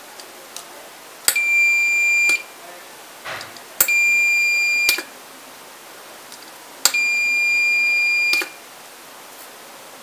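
Small buzzer on a homemade RF doorbell receiver beeping three times in a steady high-pitched tone as the wireless push button on the transmitter is pressed, showing the doorbell link works. The first two beeps last about a second, the third about a second and a half, and each starts and ends with a sharp click.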